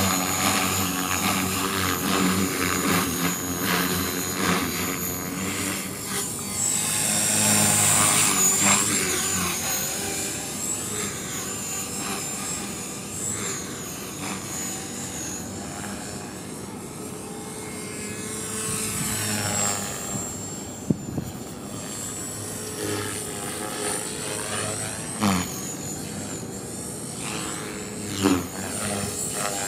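Radio-controlled model helicopter in flight, its rotor and motor whine sweeping up and down in pitch as it passes back and forth. A brief sharp click about two-thirds of the way in.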